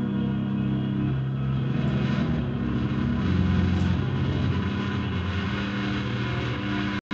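Drone guitar music: layered, sustained low notes held and shifting to new pitches every second or so. The sound cuts out completely for an instant near the end.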